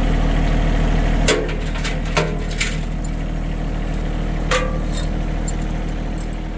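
A John Deere compact tractor's engine idling steadily, its note dropping slightly just after a second in. Over it come a few sharp metal clinks from a tow chain being unhooked from a truck's rear bumper, about a second in, twice between two and three seconds, and once at about four and a half seconds.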